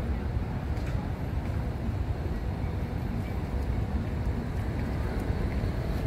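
Steady low rumble of outdoor city background noise, with no distinct event standing out.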